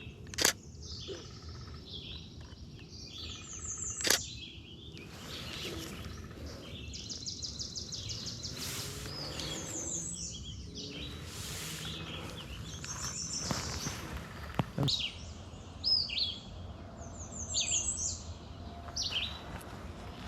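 Several songbirds singing in the trees, overlapping high, quick phrases and trills. Two sharp clicks, one just after the start and one about four seconds in.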